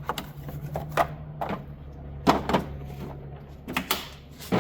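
Scattered clicks and clunks of a socket wrench and loose engine-cover parts being handled, about eight in all, over a low steady hum that fades out about halfway.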